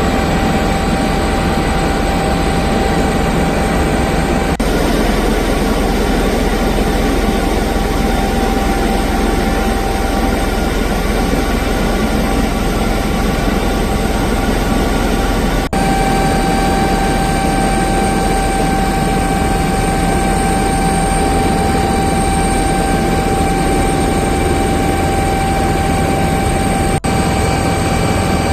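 Helicopter running with a steady engine whine and rotor noise, broken by abrupt jumps a few times where the footage is cut.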